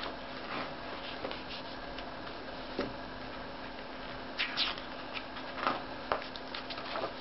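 Pages of a large hardcover book being turned by hand: several short paper rustles and flaps with light ticks, the loudest a little past the middle, over a steady faint hum.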